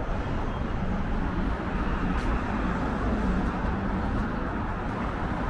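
City street ambience: a steady hum of traffic with faint voices of passers-by.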